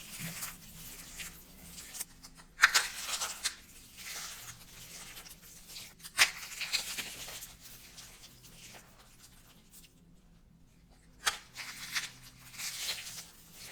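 Dry soap coated with starch being crushed and crumbled by hand: several separate bursts of crisp crackling and crunching, with quieter crumbly rustling between them.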